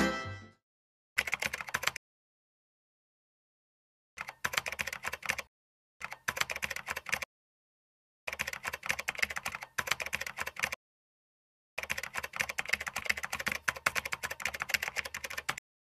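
Rapid keyboard typing clicks in five bursts, each one to four seconds long, with dead silence between them: a typing sound effect for on-screen text being typed out. Music fades out at the very start.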